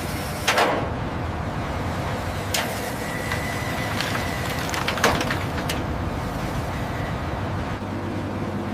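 Steady low rumble of heavy machinery with a few sharp cracking impacts, the loudest about half a second in and about five seconds in.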